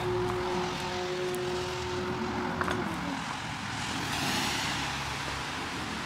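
Electric motor of a homemade EV charging-cable retractor running with a steady whine, which falls in pitch and stops about three seconds in. A rustling hiss follows.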